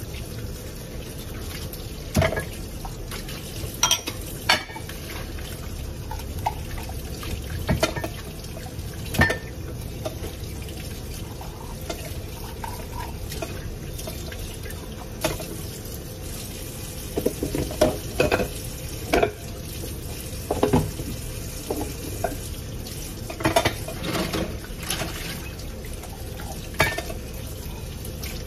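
Kitchen tap running steadily into a sink while dishes and metal pots are washed by hand. Scattered clinks and clatters of dishes knocking together come in clusters, most often in the second half.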